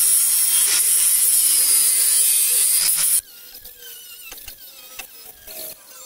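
Angle grinder grinding rusty steel on a car's underbody, a loud harsh hiss that cuts off abruptly about three seconds in. It is followed by much quieter squeaks and clicks.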